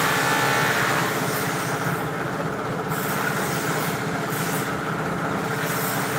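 A small engine running steadily at constant speed, a continuous hum of several steady tones with no change in pitch.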